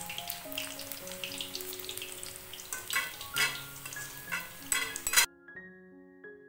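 Onion pakoda balls of gram-flour batter deep-frying in hot refined oil: a steady sizzle, with a cluster of sharp clicks and pops in its second half. The frying cuts off suddenly about five seconds in, leaving soft background piano music.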